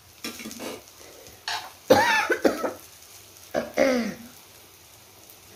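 A person coughing and clearing the throat in three short bouts; the loudest comes about two seconds in.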